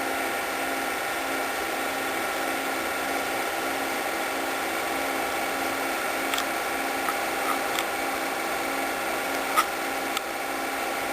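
8mm film projector running: a steady motor whir with a regular mechanical pulsing, and a few sharp clicks in the second half.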